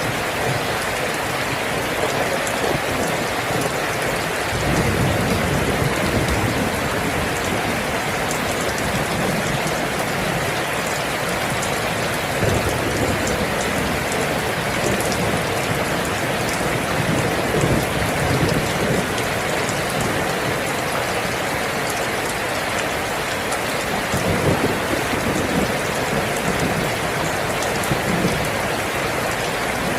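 Steady rain falling, a dense even hiss of drops, with low thunder rumbles swelling a few times.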